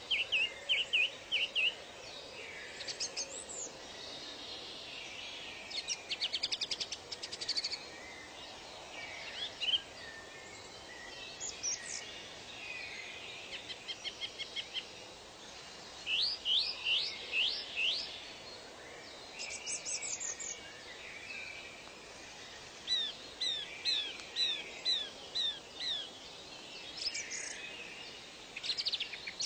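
Several birds calling and singing over a steady background hiss: clusters of chirps, fast trills and runs of quick sweeping whistled notes come and go throughout.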